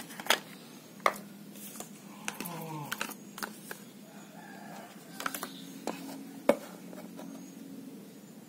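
Cardboard and paper being handled: scattered sharp clicks and taps as a phone box's white cardboard tray is lifted out and a paper leaflet is handled, with a sharp knock about a second in and the loudest one about six and a half seconds in.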